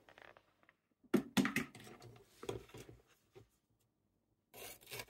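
Light knocks and rubbing as a pointed red pepper and a kitchen knife are handled on a wooden cutting board: a few short knocks about a second in, then after a brief hush a soft scraping and rubbing near the end.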